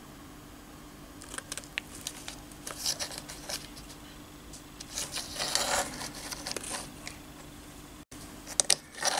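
Handling noise from a metal miniature on a plastic base being turned by hand on a cutting mat: light clicks and short scraping rustles in two spells, over a low steady hum. Near the end the sound cuts out briefly, followed by a few sharper clicks.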